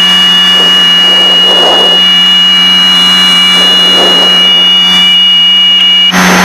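Steady drone of a Piper Seneca twin in cruise flight, heard in the cockpit, running on the left engine with the right engine feathered for a simulated engine failure. A steady high-pitched tone sounds over it and stops about six seconds in, where the noise swells.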